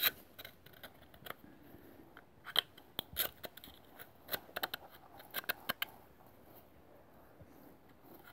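Small flathead screwdriver scraping and picking carbon deposits from around the valves in a Honda DOHC cylinder head's combustion chamber. It makes irregular sharp metal clicks and scrapes, bunched together in the middle and fainter near the end.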